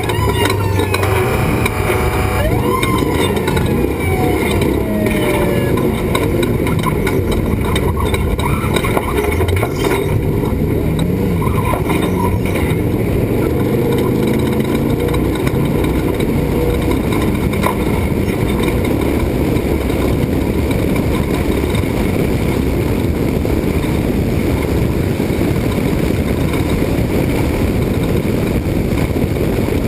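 Class 1450 off-road race truck's engine running hard at speed, under steady heavy wind and road noise. A few falling whines sound in the first few seconds.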